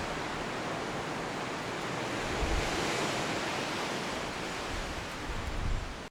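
A steady rushing noise like wind, with no clear birdsong standing out. It swells a little midway and cuts off abruptly at the end.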